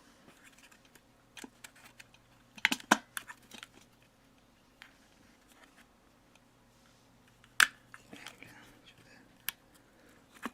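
Small plastic and metal parts of a diesel air heater being handled by hand. A cluster of sharp clicks and knocks comes about three seconds in, and one loud snap comes at about seven and a half seconds, as a connector is clipped into place.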